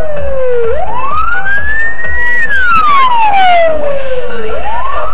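Police siren wailing, its pitch rising slowly and falling again in a cycle of about four seconds, loud as the police vehicle passes close by.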